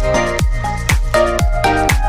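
Electronic dance music with a steady kick drum beat, about two beats a second, under synth chords.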